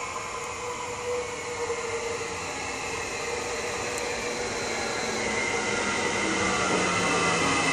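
Sm5 (Stadler FLIRT) electric multiple unit approaching along the platform and growing steadily louder. Near the end its electric whine starts to fall in pitch as it brakes for the stop.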